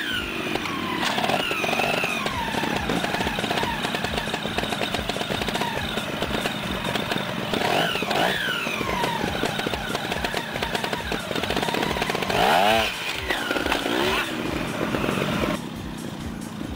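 Trials motorcycle engine running and blipped in short, sharp revs as the bike is hopped and balanced over rocks and a log; the revs jump up and fall back several times, loudest about twelve and a half seconds in, and the engine settles lower near the end.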